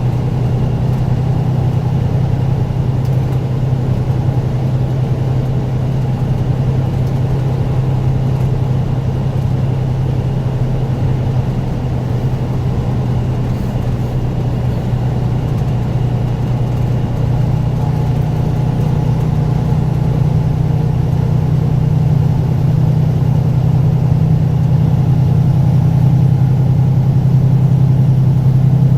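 Truck engine running at a steady drone while driving, with road noise, growing slightly louder over the last several seconds.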